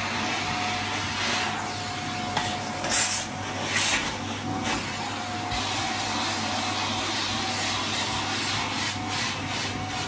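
Shark upright vacuum cleaner running steadily while its hose wand is drawn over carpet, rubbing and scraping; two short louder rushes about three and four seconds in.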